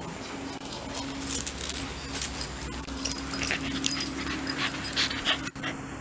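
Shiba Inu fussing affectionately against a person: small whimpering sounds amid the rustle and scuffle of fur and clothing as it squirms and rolls. A steady low hum runs underneath.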